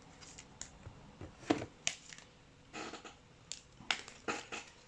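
Sleeved trading cards being handled and gathered into a stack: several light plastic clicks and taps with a little rustling between them.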